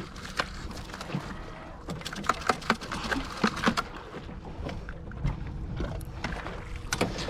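Clicks, knocks and scrapes of a crab pot being handled with a large female mud crab inside, densest in the middle, over a steady low rumble.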